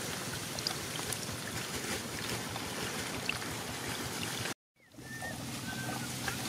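Rainwater trickling through shallow flooded grass, a steady hiss with small ticks, broken by a brief dropout to silence a little past halfway. After the dropout a few short, faint chirps sound over the water.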